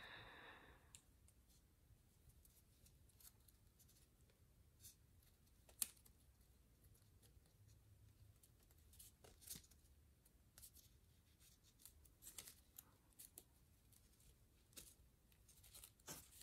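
Near silence with faint, scattered crinkles and ticks of paper being pinched and creased by hand during origami folding, and one sharper click about six seconds in.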